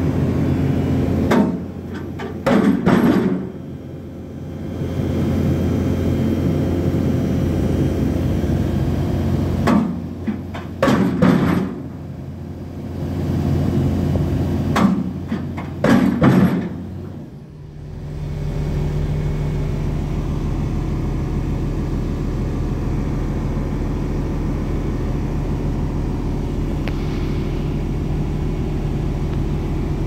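Heavy machinery running steadily at a pile driving site, broken by three groups of sharp impacts about a second and a half, ten and fifteen seconds in. These are the pile hammer striking the steel pipe pile. After about eighteen seconds only the steady engine hum remains.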